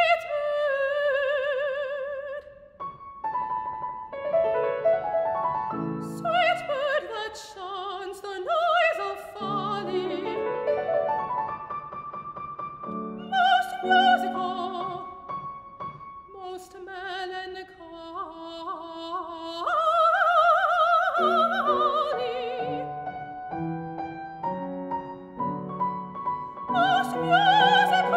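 Soprano singing a Baroque aria with piano accompaniment: she holds notes with vibrato at the start, again about two-thirds through and near the end, and the piano plays alone between those phrases.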